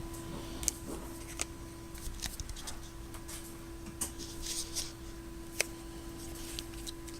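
Scattered light clicks, taps and scrapes of a plastic smartphone and its battery being handled and fitted, over a steady low hum.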